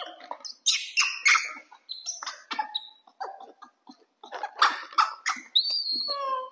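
Red plastic plates clattering and clicking as they are set down one after another on a tiled floor, with a few short high squeaks from baby monkeys.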